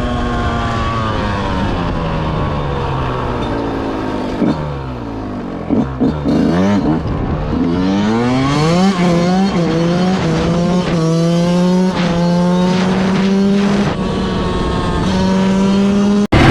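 Yamaha YZ125 single-cylinder two-stroke dirt bike engine being ridden. Revs sink over the first few seconds and fall off low about five seconds in, then it pulls hard through the gears, the pitch climbing and dropping back with each shift.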